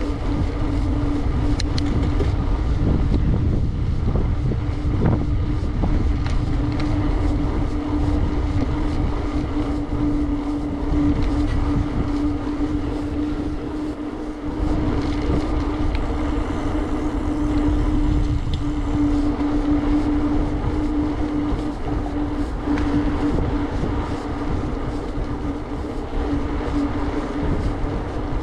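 Riding noise from a bicycle on the move: steady wind rush on the microphone and the rumble of tyres rolling, with a steady hum at one pitch throughout.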